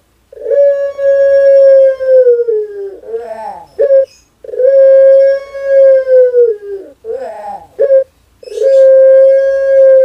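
Caged dove cooing: three long, steady coos, each held about two seconds and dipping in pitch at the end, with short falling notes in between.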